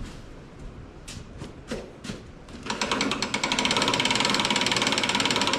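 Duncan seed drill being turned over by hand for a calibration run: a few light knocks, then from about three seconds in a loud, fast, even ratchet-like rattle of the metering mechanism.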